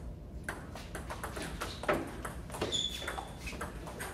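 Table tennis rally: the celluloid-type ping-pong ball clicking off the paddles and the table in a steady back-and-forth, about one hit every 0.7 seconds. A short high squeak sounds about two-thirds of the way through.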